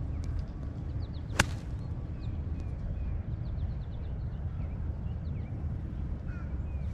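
A single sharp crack of a golf club striking a ball about a second and a half in. Under it are a steady low rumble and faint bird chirps.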